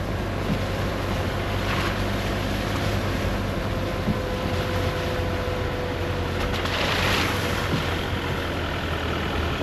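A car driving: steady engine hum with tyre and road noise.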